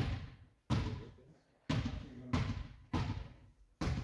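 A volleyball being hit or bounced: about six sharp thuds, irregularly spaced about half a second to a second apart, each trailing off in a short echo.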